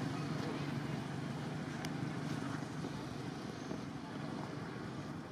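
Motorbike traffic passing on the road: steady engine and tyre noise that slowly fades. A single sharp click about two seconds in.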